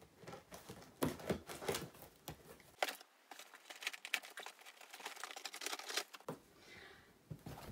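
Cardboard shipping box being opened and rummaged through by hand: its top pulled open, flaps scraping and contents crinkling, in a run of quick irregular scrapes and crackles.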